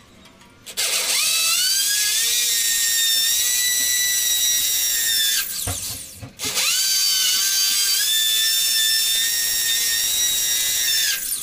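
Corded electric drill boring holes for anchor bolts at a concrete door opening: the motor spins up with a rising whine, runs steadily for about four seconds, stops near the middle, then starts again and runs until just before the end.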